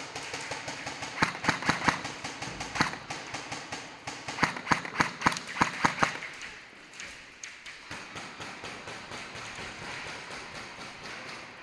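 Airsoft guns firing long full-auto strings, a fast, even clatter of shots, with two clusters of louder sharp cracks about a second in and again around the middle.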